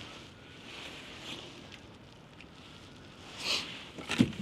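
Faint handling noises with a fish just landed in a kayak: a brief scuffing rustle about three and a half seconds in, then a sharp knock near the end.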